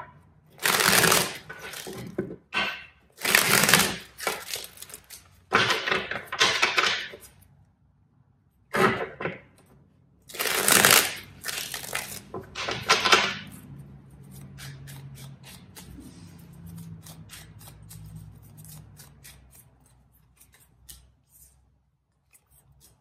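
A deck of tarot cards being shuffled in six short bursts over the first half, each about a second long, then a quieter stretch of light ticks as the cards are handled and laid out.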